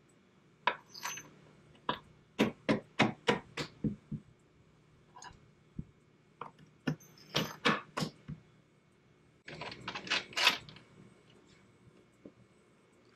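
Sharp clicks and clanks of hand tools and metal hardware being handled, in three bursts: a run of about eight strokes roughly three a second, a shorter cluster, then a dense rattle near the end.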